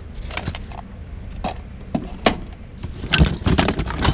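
Hands rummaging in a cardboard box of small odds and ends: the cardboard flap scraping and small items clicking and knocking together, with a quick cluster of knocks about three seconds in.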